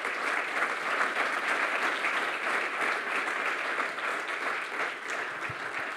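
Audience applauding: many hands clapping together at an even, sustained level.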